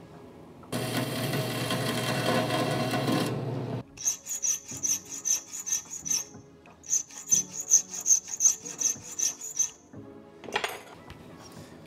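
Hand file scraping back and forth on a stainless steel rod clamped in a bench vise, about three to four strokes a second, in two runs with a short pause between. It follows a steady, loud rushing noise of about three seconds, and a single sharp click comes near the end.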